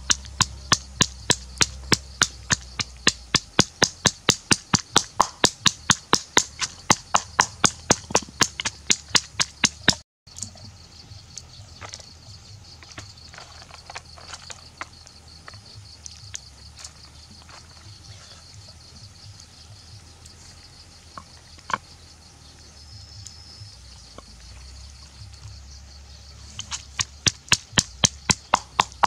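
Wooden pestle pounding garlic and herbs in a wooden mortar, an even run of strikes about three to four a second. The pounding stops for a stretch of scattered small handling clicks, then starts again near the end, all over a steady high insect hiss.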